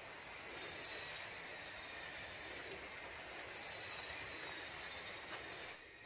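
Footsteps on a dirt forest trail with leaves and branches brushing against the walker, a steady rustling, over a faint steady high-pitched tone. The rustling drops away suddenly near the end.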